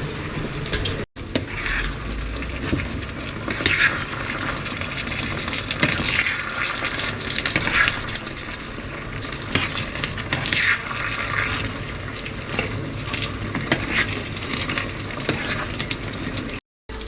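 Food sizzling in a pan while a utensil stirs and scrapes against it, with frequent small clicks. The sound cuts out briefly twice, about a second in and near the end.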